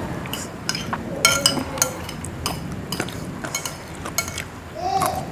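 Metal spoons clinking and scraping against china plates as several people eat, a string of light, ringing taps.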